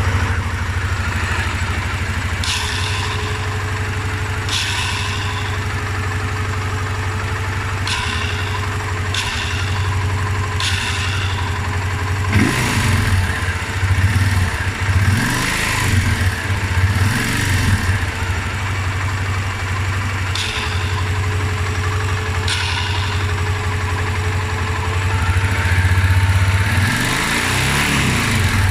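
Honda Transalp 600 V-twin engine idling with a faint steady whistle, which the owner ties to the starter. Short high-pitched bursts come several times, and the engine is revved in a few quick blips in the middle and again near the end.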